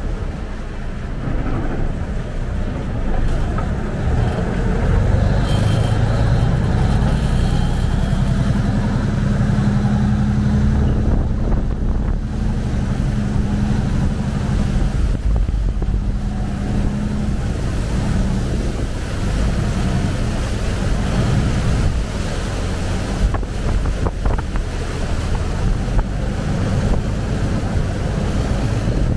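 Bangkok canal taxi boat's diesel engine running at cruising speed, a loud steady drone, with water rushing past the hull and wind buffeting the microphone.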